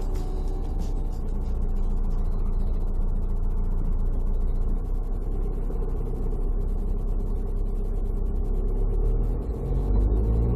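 Steady low rumble of a car driving on the road, with quiet background music over it.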